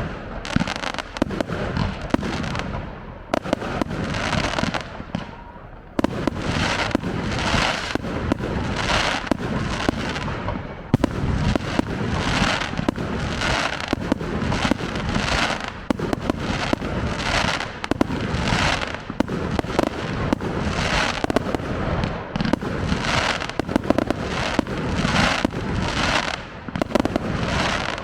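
Fireworks display: a dense barrage of bangs and crackling shells. After a brief lull about three to six seconds in, it starts again suddenly as rapid, evenly repeating volleys, with one especially sharp bang near the middle.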